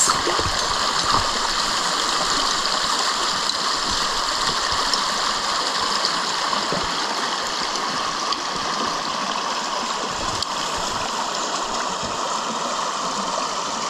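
Small shallow creek babbling steadily over stones.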